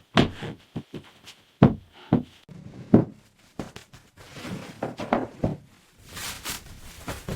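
A string of irregular knocks and thumps. A steady hiss joins them about six seconds in.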